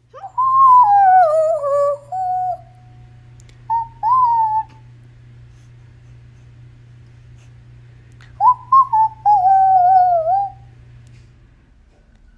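Whistled sound effects in three phrases: a long wavering whistle that slides from high to lower, two short notes a moment later, and another long wavering whistle near the end. A low steady hum runs beneath them and stops shortly before the end.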